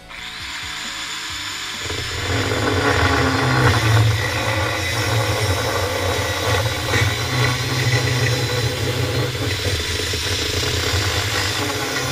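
Angle grinder cutting through the top of a metal chain link fence post, trimming off the end that a post pounder rounded over. The grinder starts under load at the start and settles into a steady, loud cutting noise from about two seconds in.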